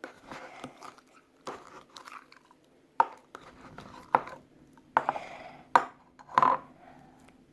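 Very sticky fluffy slime squeezed and pulled apart by hand, giving a run of wet, sticky pops and squelches, with the sharpest pops about three, four and six seconds in.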